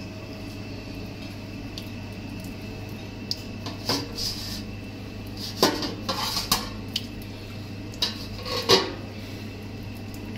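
Dishes knocking in a kitchen sink as a plastic colander is moved and a plate is set down: a handful of scattered clinks and knocks over a steady low hum.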